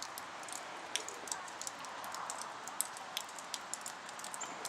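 Many small irregular ticks and patters over a steady hiss: ice and meltwater dropping from ice-coated trees and branches after an ice storm.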